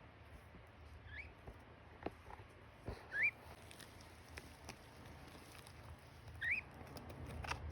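Lineolated parakeet giving three short rising chirps a few seconds apart, among faint scattered taps and clicks.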